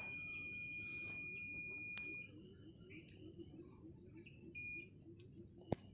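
Digital multimeter's continuity buzzer giving one steady high beep while the probes sit on a near-zero-ohm connection, cutting off about two seconds in as the probes come away. A short beep and a sharp click of a probe touching follow near the end.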